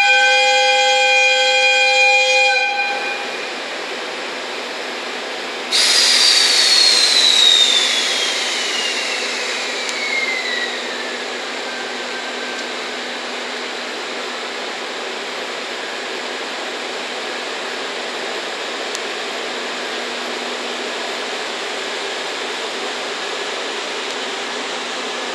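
EF65 electric locomotive's air whistle holding one long note, which stops about two and a half seconds in. About six seconds in, a sudden loud hiss of compressed air is released, with a whistling tone that falls steadily over several seconds as it fades. A steady hiss runs underneath, from the locomotive's blower.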